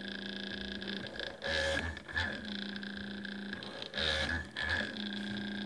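Small DC motor of a homemade PCB drill press whining steadily at idle speed. It gets louder twice, about a second and a half in and again at about four seconds, as the bit drills holes through a fibreglass (FR-4) circuit board. The motor's speed controller revs it up under the load of drilling.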